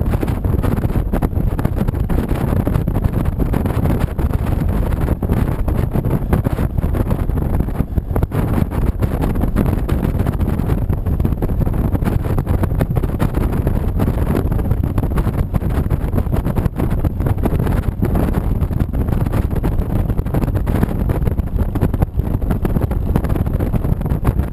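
Steady wind rush on the microphone over the running of a 2007 Honda VTX 1300C's V-twin engine at cruising speed.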